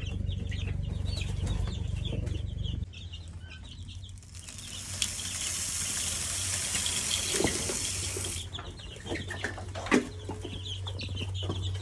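Chickens clucking near the start and again near the end. A steady hiss runs for about four seconds in the middle. A low hum stops about three seconds in.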